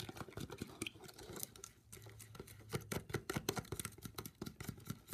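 A straw stirring borax solution briskly in a container to work up bubbles, making fast, irregular light clicks and taps.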